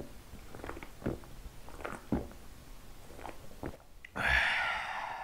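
A person gulping beer from a can: several swallows about a second apart, then a long breathy 'ahh' of satisfaction about four seconds in.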